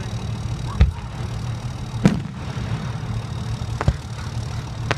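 Fireworks going off: four sharp bangs, each a second or so apart, over a steady low rumble.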